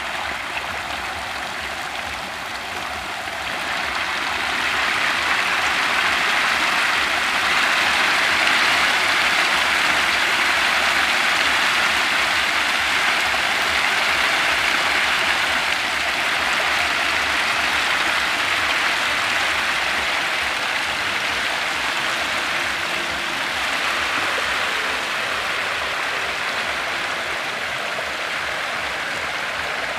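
Dense, continuous splashing and churning of water from a mass of hybrid magur catfish fingerlings thrashing at the surface in a shallow pond as they feed. It grows louder about three and a half seconds in.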